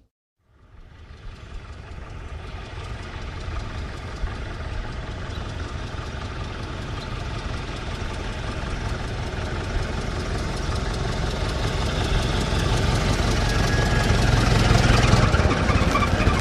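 Old car's engine running steadily. It fades in after a brief silence near the start and grows gradually louder.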